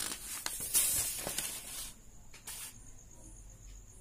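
Sheet of paper rustling and sliding across a desk as a written page is taken away and a blank one laid down: about two seconds of rustling, loudest about a second in, with one more short rustle shortly after.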